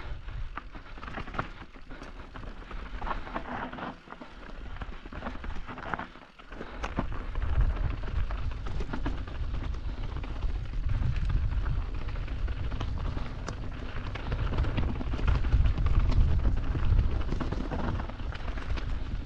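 Mountain bike riding down a rocky trail: tyres crunching over loose stones and the bike rattling, with many small clicks. About seven seconds in, wind rumbling on the microphone takes over and grows louder.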